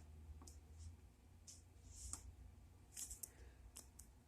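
Faint, irregular clicks of buttons being pressed on an electric pressure cooker's control panel as the cooking time is set, about eight or nine light presses over a few seconds.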